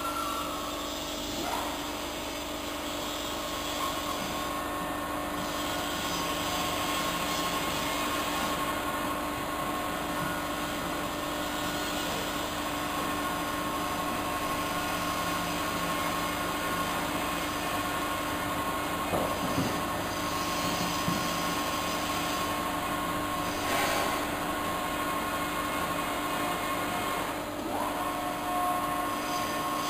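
An Evashred EV110E Panther shredder runs steadily while its force-feed hopper presses a foam rubber bale into the cutters. It makes a continuous mechanical hum with a few steady whining tones, and these shift briefly a few times.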